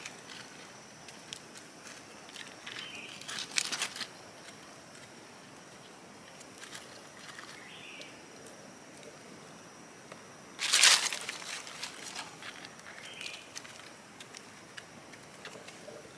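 Dry leaf litter rustling and crackling under hands picking mushrooms off the forest floor, in scattered small clicks with two louder crunching bursts, the louder one about two-thirds of the way through.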